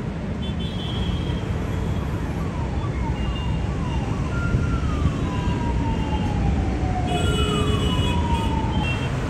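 Jet engines of an Emirates Boeing 777-300ER, a steady loud rumble. Over it are whines falling in pitch: a few short ones, then two long slow ones.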